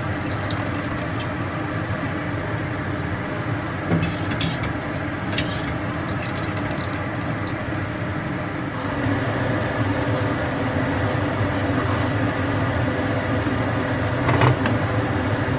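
Steady rushing kitchen background noise, with a few light clinks and scrapes of cooking utensils as pasta is lifted from the pot into a cast-iron skillet of cream sauce and stirred, about four to five seconds in and again near the end.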